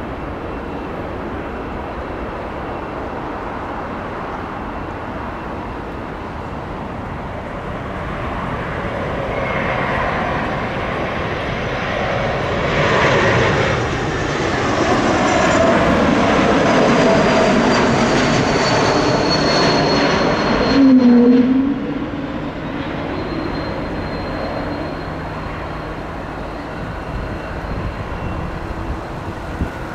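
Airbus A220 jet passing low overhead on final approach: the turbofan noise swells and a whine falls in pitch as it goes over, then cuts off abruptly about two-thirds of the way in. Before and after, a steadier, quieter jet noise with a faint high tone.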